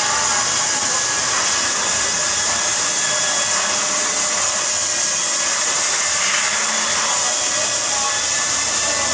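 A power tool running steadily with an even, hissing whir.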